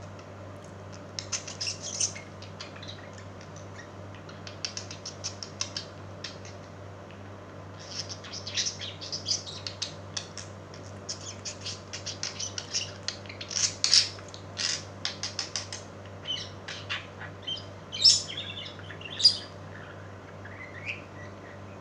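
Pet birds calling in quick clusters of short, sharp chirps and squawks, with two louder squawks about three-quarters of the way through.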